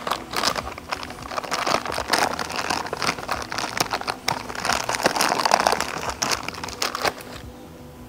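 Clear plastic parts bag crinkling as gloved hands open it and handle the hardware inside: a busy, irregular run of crackles that stops about seven seconds in.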